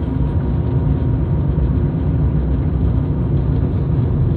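Steady low rumble of a car's engine and tyres on asphalt, heard from inside the moving car.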